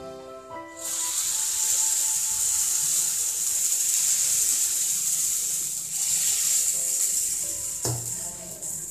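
Dosa batter sizzling in hot oil as it is poured into the wells of a heated paniyaram pan. The sizzle starts about a second in and runs on steadily, with a short knock near the end.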